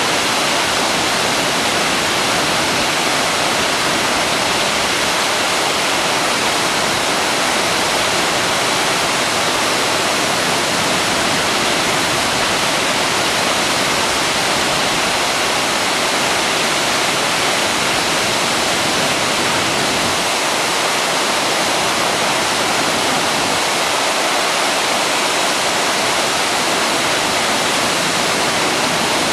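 Waterfall running steadily: a constant, even rush of falling water with no change in level.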